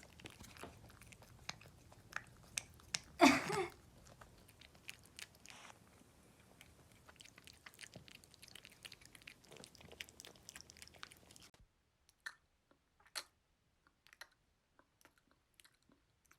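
Chewing and crunching: many small crisp bites and clicks, with one louder, brief sound about three seconds in. The chewing stops abruptly about eleven seconds in, leaving near silence broken by a few faint clicks.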